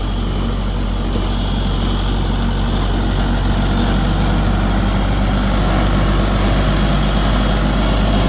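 Tractor engine running steadily at low throttle, kept slow and quiet while the tractor creeps along.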